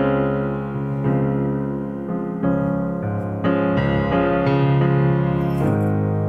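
Background music: held chords that change every second or two.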